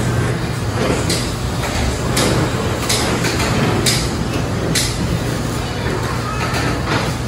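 Busy fish-market counter: a steady low hum under faint background voices, with about five short rustles in the first five seconds.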